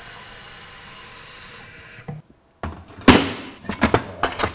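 Kitchen tap water running into a stainless steel pot of cut sweet potato pieces, fading out about two seconds in. A few sharp knocks and clatters follow near the end, the first the loudest.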